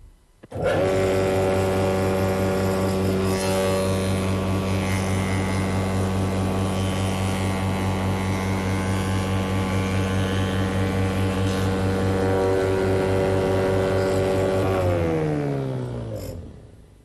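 Spindle moulder running at steady speed with an even hum while a straight length of timber is fed past its cutter block under the spring hold-downs. About fifteen seconds in it is switched off, and the pitch falls away as the spindle runs down.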